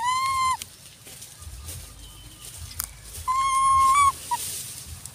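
Macaque coo calls: two clear, steady-pitched calls, one at the start and a longer one about three seconds later, followed by a brief short chirp.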